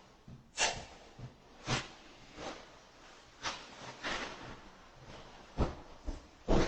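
Soft thuds and scuffs, roughly one a second and unevenly spaced, from people climbing a stairway while carrying groceries, over a faint steady hiss.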